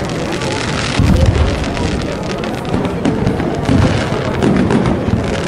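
Fireworks display: aerial shells booming, with dense crackling from the bursts. The booms come about a second in and again near four seconds, over a crowd's buzz.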